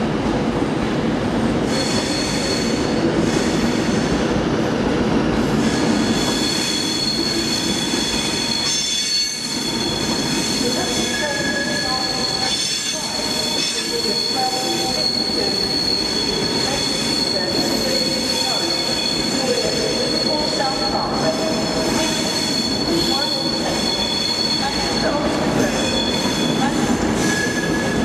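Virgin Trains Class 390 Pendolino electric train rolling past. Its wheels squeal steadily at a high pitch over the rumble of the wheels on the rails, and other squeal tones come and go in the second half.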